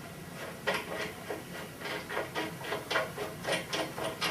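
Rapid, uneven series of light clicks and knocks, about four a second, starting just under a second in, as a buffing wheel and its knob adapter are fitted to the belt grinder's shaft.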